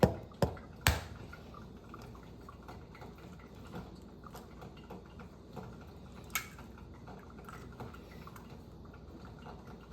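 An egg being knocked on a flat surface to crack it: three sharp taps within the first second, the third the loudest. A single quieter tap comes about six seconds in.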